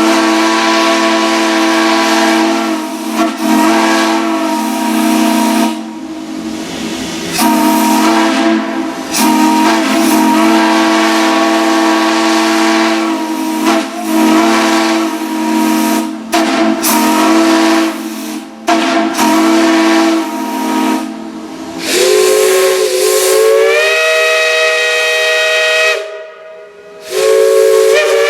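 Steam chime whistles blowing in long blasts, each sounding several notes at once as a chord over a steam hiss, with brief dips between blasts. About three-quarters of the way in a different whistle takes over, its pitch sliding upward as it opens. It stops for about a second near the end, then sounds again.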